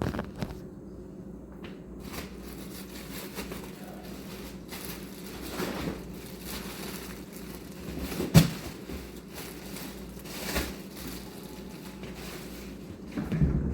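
Kitchen cooking noises: rustling and crackling with a few sharp knocks, the loudest a little past the middle, over a steady low hum.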